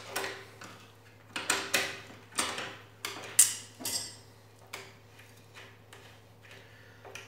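Water-pump pliers clicking against the steel bolt head in a wooden chair's joint as the bolt is turned and re-gripped: a run of sharp, irregular metallic clicks, thinning out after about four seconds.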